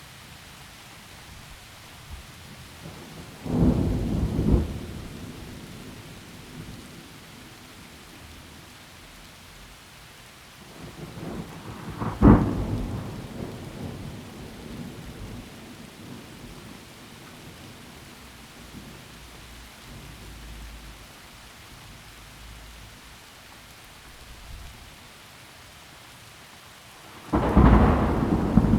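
Steady rain with thunder breaking over it three times. A peal comes about three and a half seconds in, a sharp crack about twelve seconds in rumbles away slowly, and a third loud peal starts near the end.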